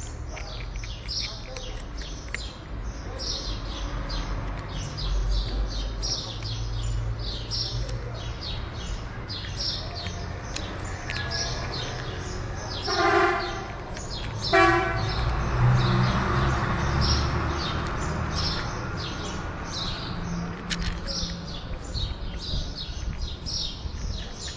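Small birds chirping over and over above a low street rumble. Two short horn toots come a second and a half apart about halfway through, followed by a vehicle passing.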